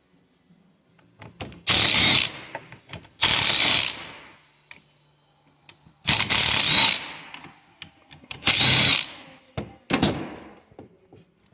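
Cordless drill/driver run in five short bursts of about a second each, the last one shorter, backing out the screws that hold the ports on a plastic coolant flow control valve housing.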